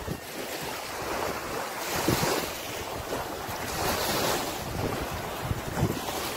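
Coastal wind buffeting the phone's microphone in uneven gusts, over the wash of small waves on the sand, which swells up twice.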